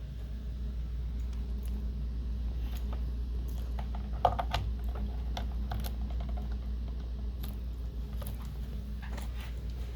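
Scattered small plastic clicks and taps from a VGA cable connector being handled and plugged into its port, with one sharper click about four seconds in, over a steady low hum.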